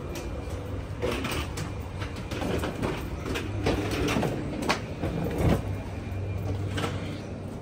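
Footsteps and wheeled suitcases rolling and clattering through an airport jet bridge, with irregular knocks, the loudest a little past the middle, over a steady low hum.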